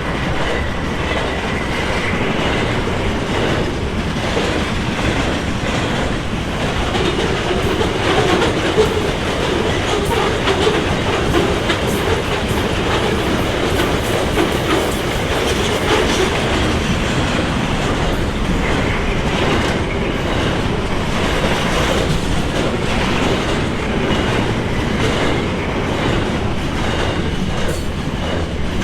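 A train rolling past close by: a steady rumble of wagons, with the wheels clicking over the rail joints.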